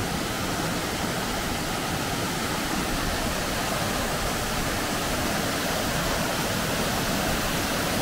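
Waterfall rushing steadily, its water pouring down over rocks in an even, unbroken roar of falling water.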